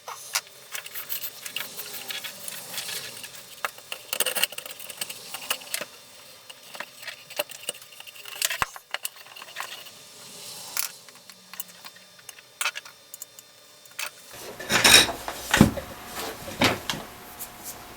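Light clicks and ticks of hand tools and small parts being handled while a Craftsman router is taken apart, turning into louder clattering near the end.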